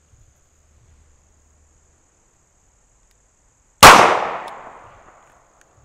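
A single shot from a Smith & Wesson 351C revolver firing a .22 Magnum (.22 WMR) Federal Punch round, about four seconds in. The sharp report rings out and fades over about a second and a half.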